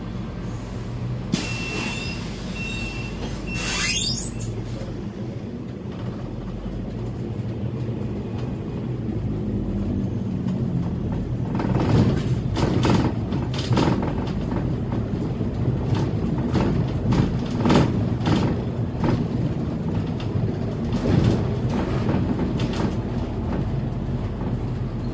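Scania K320 articulated bus running from the driver's cab as it pulls away and drives on, its engine note building from about ten seconds in, with repeated knocks and rattles from the bus body in the second half. Three short high beeps sound near the start.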